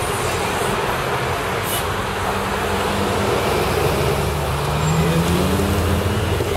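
Steady road and engine noise of a car driving in city traffic, heard from inside the cabin. The engine note climbs in pitch about four to five seconds in.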